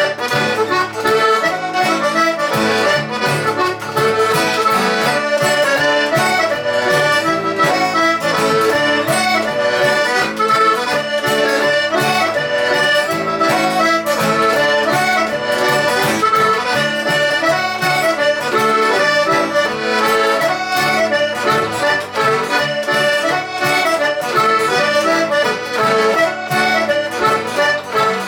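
Traditional Hebridean accordion music with guitar accompaniment: one continuous tune with a steady rhythm.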